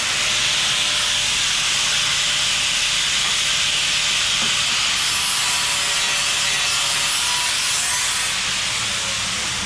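A steady, loud hiss with a few faint steady tones underneath, unchanging throughout.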